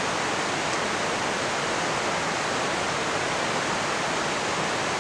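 Steady rush of the Carbon River, a glacier-fed river, its water running as an even, unbroken noise.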